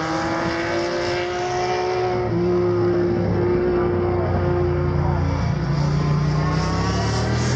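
Racing motorcycles passing at speed through a corner, several steady motor tones drifting slowly in pitch, with a low steady drone growing stronger about two seconds in.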